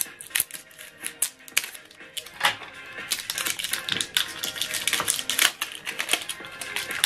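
Many quick plastic clicks and crackles as an ink cartridge is handled out of its packaging and its orange plastic protective cap is pulled off, with background music.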